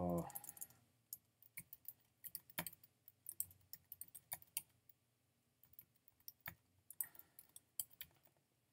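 Typing on a computer keyboard: quick runs of key clicks, pausing about halfway through and then resuming. A short vocal sound, the loudest thing, comes right at the start.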